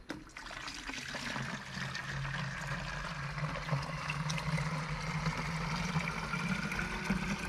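Spring water poured from a plastic bucket into the narrow mouth of a plastic jug: a steady splashing trickle whose pitch rises slightly as the jug fills.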